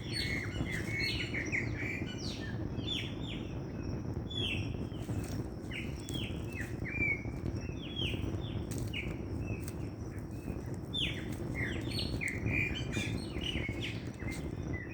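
Dawn chorus of many small birds chirping and singing together, a busy overlapping stream of short, mostly falling notes, over a steady low hum.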